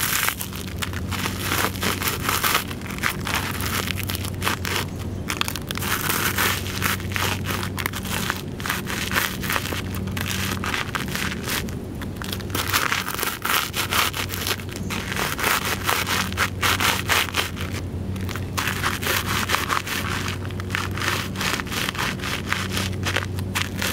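Deer Stags leather loafers stomping on and grinding a pile of dry cereal flakes with raisins on concrete: repeated crunching and gritty scraping as the flakes are crushed fine underfoot.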